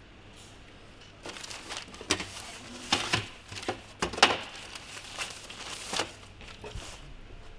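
Paper crumpling and rustling in irregular bursts as hands rummage through a wooden crate. It starts about a second in, has its sharpest crackles around the middle, and dies away near the end.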